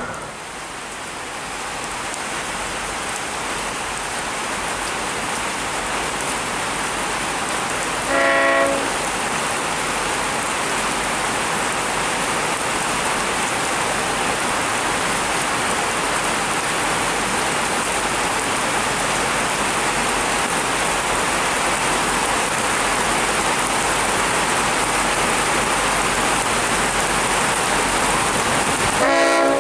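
Heavy rain falling steadily, with two short blasts from a V/Line N class diesel locomotive's multi-note horn: one about eight seconds in and one at the very end.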